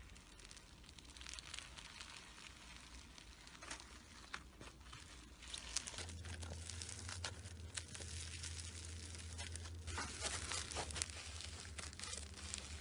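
Slime being squeezed and worked by hand, a dense crackle of small pops and crinkles that grows thicker about halfway through, over a low steady hum that starts at the same point.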